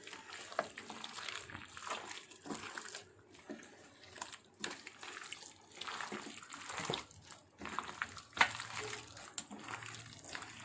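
Hands squishing and kneading raw chicken pieces in a wet marinade of egg, spice paste and gram and rice flour, in irregular wet squelches.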